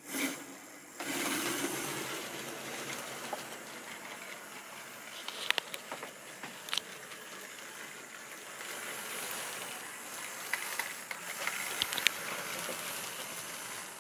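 Tri-ang OO-gauge model train running along the track: a steady whirring rumble of motor and wheels, starting about a second in, with a few sharp clicks along the way.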